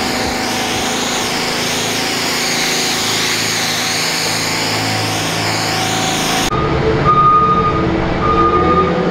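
Steady hiss of tack coat being sprayed from a hand wand. About six and a half seconds in it changes abruptly to a diesel truck engine running with a backup alarm beeping about every two-thirds of a second.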